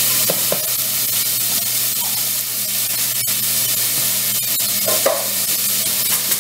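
Diced vegetables sizzling steadily in hot oil in a stainless saucepan on an induction hob, sweating off their moisture, with one sharp click about halfway through.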